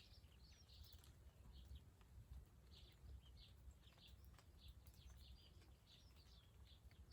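Faint birdsong, small birds chirping again and again, with a few soft drips of rainwater falling through a tree after the rain has stopped.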